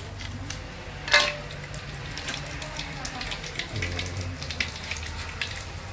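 Oil crackling and sizzling in a wok on a biogas stove, with scattered small pops and one sharper clink about a second in.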